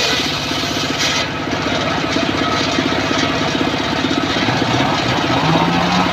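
Engine-driven homemade circular saw bench running while its blade rips a long teak plank lengthwise. The engine runs steadily with a fast, even pulse.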